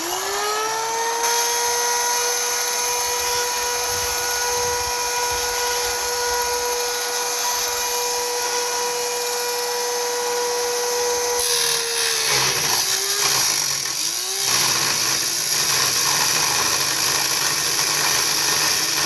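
Old aluminium-bodied circular saw with an abrasive cutoff disc spinning up to a steady high whine. About twelve seconds in, the disc goes into thick steel: the motor pitch sags and bogs down twice under the load, and a harsh grinding noise of the cut continues.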